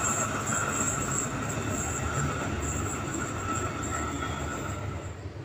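JR 205-series electric commuter train running away along the track, its rolling noise fading as it recedes. A thin steady high tone runs with it and dies out about four and a half seconds in.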